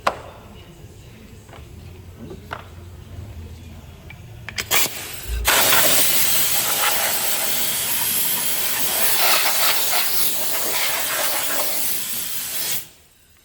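A loud, steady hiss of gas or air jetting under pressure. It starts about five seconds in after a few short spurts and cuts off abruptly near the end.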